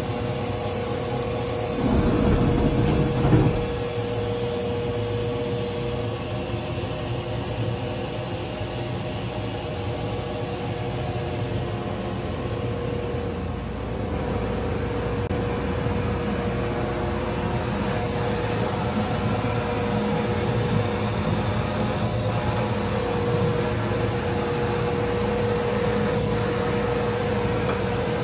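Steady hum of running machinery, with a constant mid-pitched tone over it. A short louder rumble comes about two seconds in.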